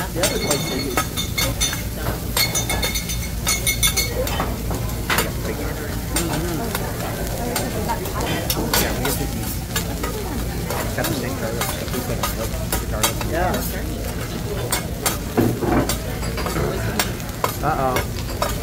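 Food sizzling on a hibachi chef's flat-top griddle, with metal spatulas scraping and clicking against the steel throughout. Some clanks ring out in the first few seconds.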